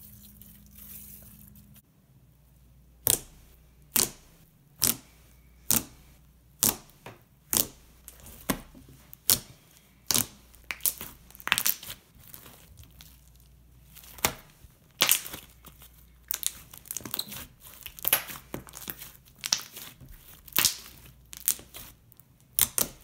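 Large batch of thick, glossy mint green slime being kneaded and pressed by hand, giving sharp pops and crackles. They start about three seconds in at roughly one a second, then come faster and more irregularly.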